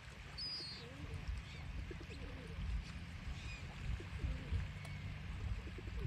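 Beach ambience with a steady low rumble of wind and surf. A small bird gives a short burst of high chirps about half a second in, and faint bird calls come and go.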